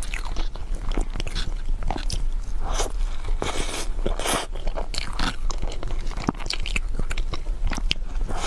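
Close-miked eating sounds of a person taking bites of soft mousse cake from a fork: many short wet clicks, lip smacks and chewing, over a low steady hum.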